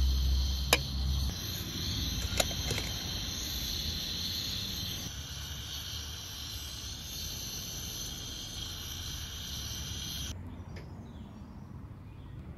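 A porcelain teapot clinks a few times against an aluminium kettle as it is set on top of it on a gas burner, over a steady high hiss that stops abruptly about ten seconds in.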